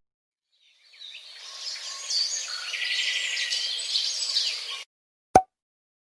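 Birds chirping and singing over a soft outdoor hiss. The sound fades in about a second in, runs for about four seconds and cuts off abruptly. A single short pop follows.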